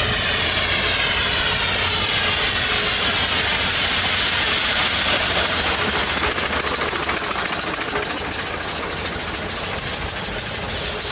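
Steam lorry driving past close by. Its running noise sweeps down in pitch as it goes by, then turns into rapid, regular beats from about seven seconds in as it pulls away.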